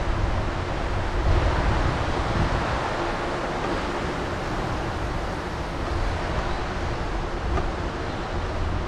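Wind buffeting the microphone of a moving bicycle: a steady low rumble under a hiss of rushing air.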